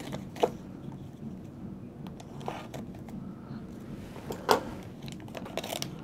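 Plastic anti-static bag rustling and crinkling as a laptop RAM stick is worked out of it, with a few sharp ticks spread through.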